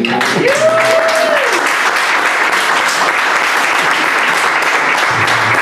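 Audience applause after a song, a dense steady clapping. A short rising-and-falling call sounds over it near the start.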